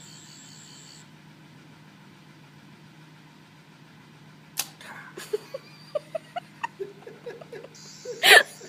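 Toy 11th Doctor sonic screwdriver giving its high electronic whine, which stops about a second in. A few sharp clicks follow a few seconds later, then a brief second burst of the whine near the end, cut across by a loud sound.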